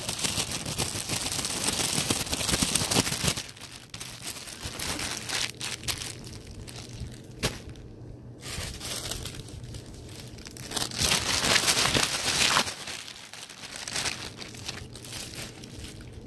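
Thin plastic squishy packaging bag crinkling and tearing as it is handled. The handling is loudest over the first three seconds and again briefly about eleven seconds in.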